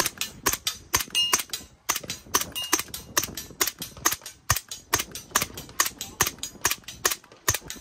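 Suppressed HK MP5-pattern 9mm submachine gun firing a rapid string of shots with 147-grain ammunition, several a second, with flat, muted reports. The shots vary in loudness.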